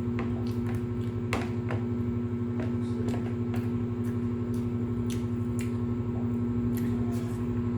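Close-up eating sounds: irregular wet chewing and mouth clicks, a few a second, over a steady low hum.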